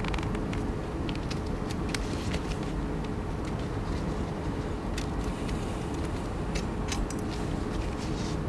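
A small paper letter being folded and handled, with light crackles, then small scissors snipping narrow slips of paper, heard as a few sharp clicks in the second half. A steady low hum runs underneath.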